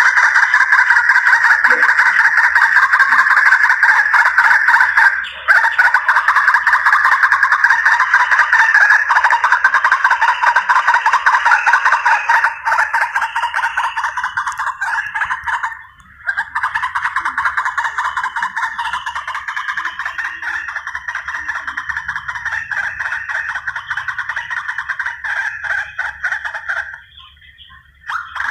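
White-breasted waterhen (ruak-ruak) calling, played as a hunting lure call: a loud, unbroken run of rapid repeated harsh notes. It breaks off briefly about five seconds in and again around sixteen seconds, then stops shortly before the end.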